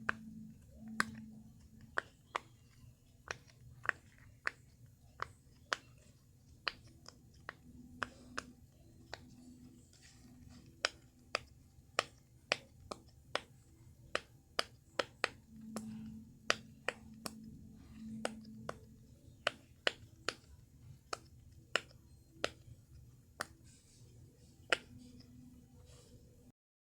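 Silicone pop-it fidget toy, its bubbles pressed one after another, giving sharp little pops at an uneven pace of about one or two a second. The popping stops abruptly near the end.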